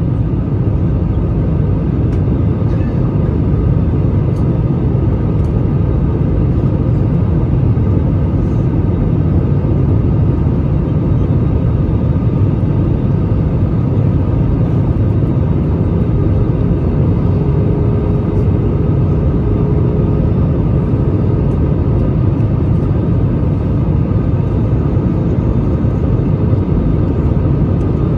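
Steady low roar inside the cabin of an Airbus A320 on approach to landing: engine noise and the rush of air over the extended flaps, heard from a window seat.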